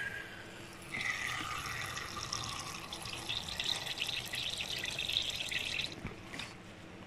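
Water squeezed from a plastic squeeze bottle's nozzle into a small water dish, a thin stream trickling and splashing for about five seconds before stopping near the end.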